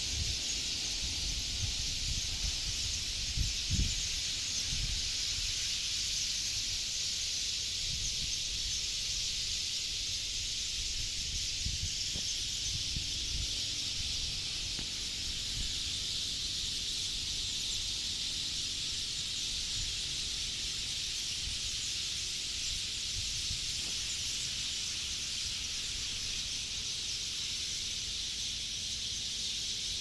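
A dense, steady chorus of chirping from a huge flock of sparrows gathered in acacia trees at their evening roost. A few low thumps hit the microphone in the first few seconds.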